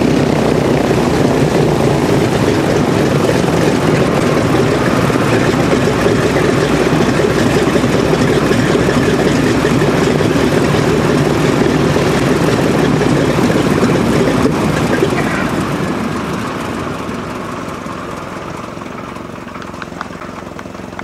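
The TBM-3E Avenger's Wright R-2600 Cyclone twin-row radial engine idles on the ground with its propeller turning. About fifteen seconds in it is shut down, and the sound fades over several seconds as the propeller winds down.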